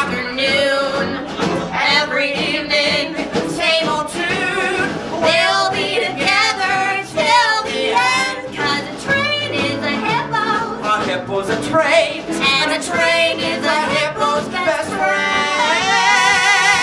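Wordless live singing with heavy vibrato over musical accompaniment, ending in a long, wavering held note.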